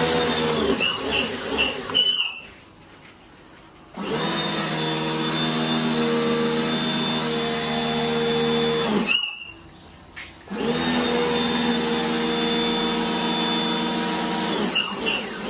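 Pioneer P1 electric pressure washer's motor and pump running while spraying foam through a foam bottle: three runs of a few seconds each, a steady whine over a spray hiss, cutting out between runs as the trigger is released.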